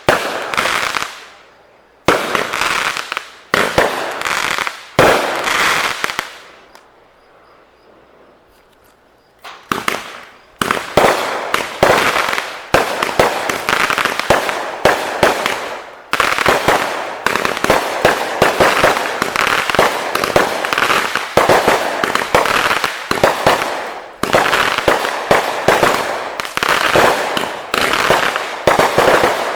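Fireworks going off: separate loud bangs about a second apart, each trailing off, then a pause of about three seconds. From about ten seconds in comes a dense, rapid run of bangs and crackles.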